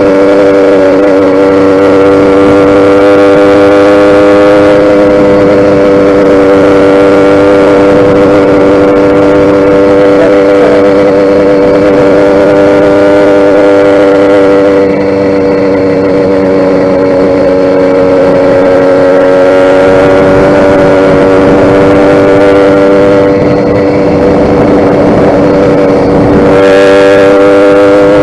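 YD100 two-stroke motorized bicycle engine running loud at a steady high speed, its pitch holding almost constant, with a slight easing of the upper hiss twice.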